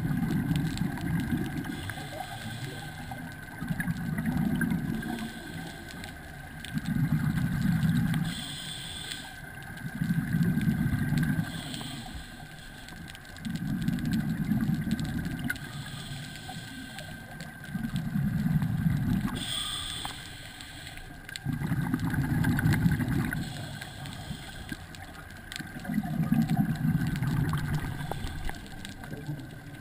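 Underwater, a scuba diver's regulator exhaling, each breath sending out a low, gurgling rumble of bubbles. The bursts come in a steady rhythm, about one every three to four seconds.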